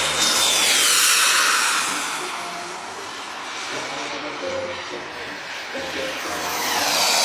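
An aircraft flying past: a rushing engine noise swells to a peak about a second in and fades with a falling whoosh, then a second pass swells near the end. Soft background music runs underneath.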